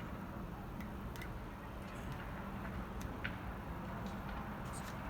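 Light, irregular clicks and taps of a small plastic measuring cup being scraped out into a bowl, over a steady low hum.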